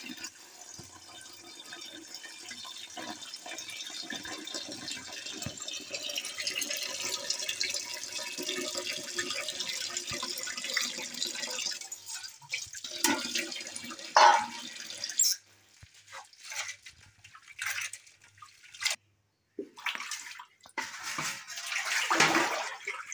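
Tap water running into an aluminium pot of chopped bottle gourd leaves while they are swished and rinsed by hand. About fifteen seconds in the flow stops, leaving separate splashes and sloshes as the water is poured off and the leaves are handled.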